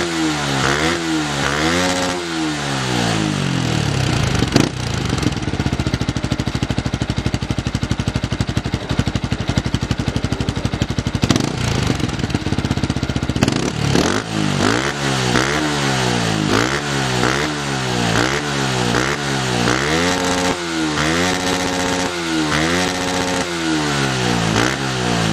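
Fantic Casa 125 supermoto motorcycle engine on its stock exhaust being revved in repeated blips, pitch rising and falling. It runs at a steady speed for several seconds in the middle, then is revved repeatedly again in the second half.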